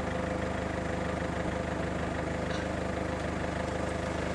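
Car engine running with a steady hum, heard from inside the car while it drives.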